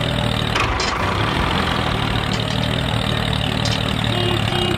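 A tractor engine idling steadily.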